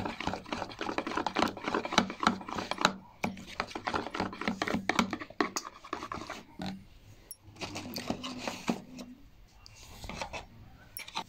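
Metal spoon stirring a yogurt marinade in a plastic bowl: quick scraping and light clicks of the spoon against the bowl, dense at first and thinning to occasional taps in the second half.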